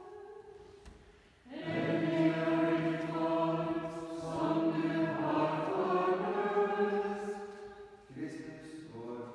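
Voices of a small choir of Dominican friars chanting vespers. A sung line fades at the start, then the group comes in about one and a half seconds in with long held notes, and a quieter line carries on near the end.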